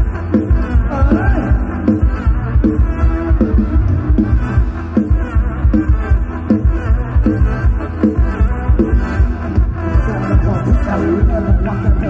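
Loud Thai rot hae band music through a large speaker stack, with a fast, heavy bass drum beat and a singing voice over it.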